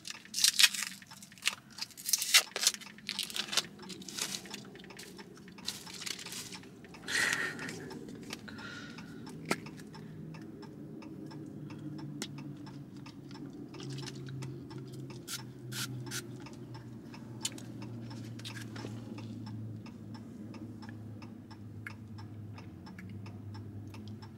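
Short hissing puffs and clicks from a pump spray of liquid candy being worked and sprayed into the mouth, with mouth sounds, over a low steady hum.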